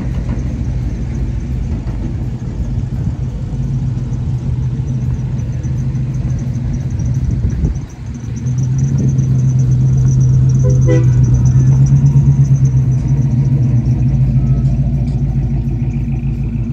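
A motor vehicle engine running with a steady low rumble. It dips briefly about eight seconds in, then runs louder for several seconds before easing off.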